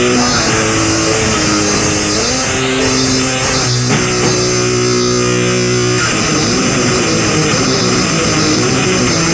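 Lo-fi hardcore punk recording: distorted electric guitar chords that slide up and down in pitch, with one chord held for about two seconds near the middle, then a busier passage about six seconds in.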